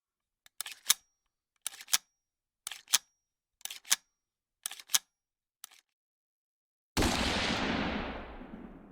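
Five quick bursts of mechanical clicking about a second apart, each ending in a sharp, loud click, then a sudden loud blast that dies away over about two seconds.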